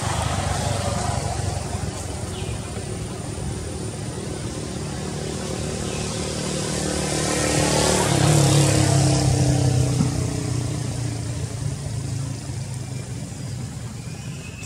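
Engine of a passing motor vehicle, a steady hum that grows louder to a peak about eight seconds in, drops in pitch, then fades.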